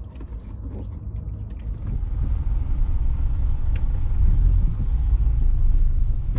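Low, steady in-cabin rumble of a Daihatsu Atrai Wagon kei van as it moves off. The rumble gets louder about two seconds in.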